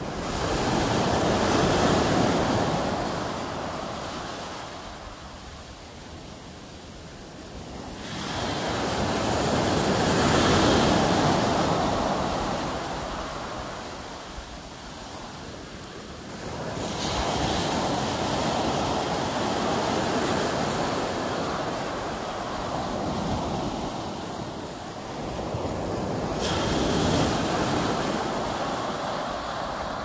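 Sea waves breaking on a sand-and-pebble shore: four surges of surf, each a sudden rush that swells and then fades as the water washes back, about eight seconds apart.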